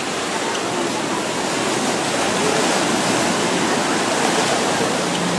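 Small waves washing onto a sandy beach, a steady rushing noise.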